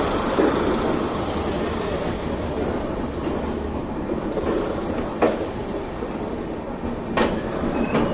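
Passenger express train rolling slowly into a station, heard from aboard the coach: a steady rumble of wheels on rail, with three sharp clicks of the wheels over rail joints in the second half.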